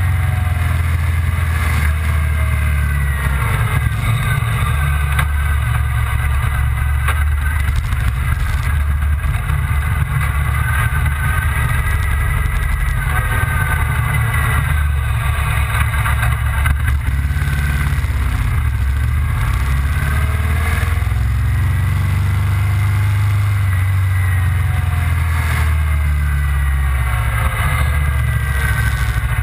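Motorcycle engine running as the bike is ridden at modest speed, its pitch rising and falling with the throttle, over a heavy rumble of wind on the microphone.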